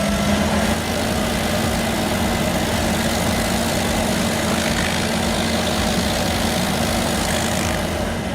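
Heavy engine-driven machine running steadily: a loud, even noise over a low engine drone, with no break or change.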